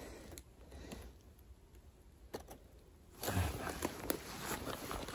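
Footsteps on the forest floor's dry needles and twigs, with rustling and small sharp snaps, starting about three seconds in after a quiet stretch.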